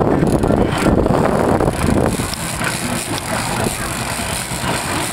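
Mercury 225 outboard motor running steadily at low speed.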